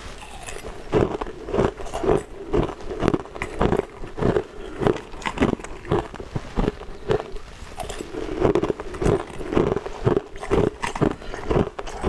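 Frozen purple ice cubes being bitten and chewed, a run of crisp crunches about two or three a second.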